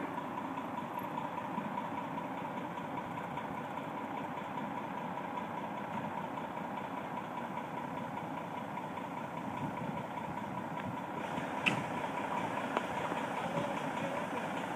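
An engine running steadily at idle, with a short sharp click about two-thirds of the way through.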